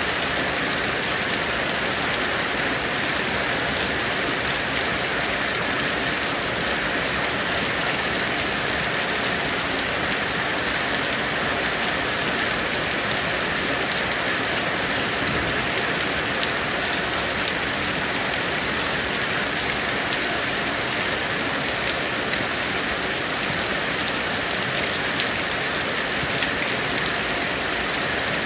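Heavy rain falling steadily, a dense even hiss with a few sharper drop ticks now and then.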